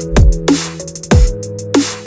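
Electronic background music with a steady beat: deep kick drums about once a second under held synth chords and hi-hat ticks.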